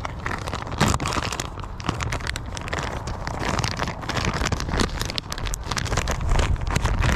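Plastic soft-bait package crinkling and crackling in irregular bursts as it is handled close to the microphone, over low wind rumble on the microphone.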